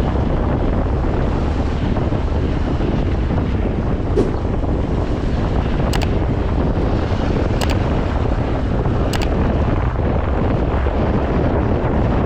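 Wind buffeting the microphone on a Yamaha RayZR 125 scooter riding at speed, a steady rush with the ride's road and engine noise mixed in. A few short, sharp ticks come through, spaced out over the ride.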